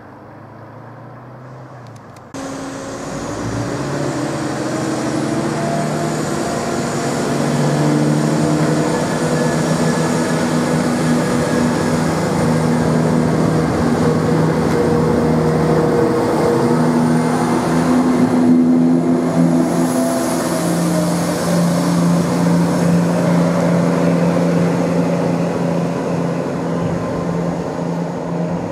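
Class 170 Turbostar diesel multiple unit running close past under power, its underfloor diesel engines giving a loud drone whose pitch shifts in steps. The sound jumps in suddenly about two seconds in.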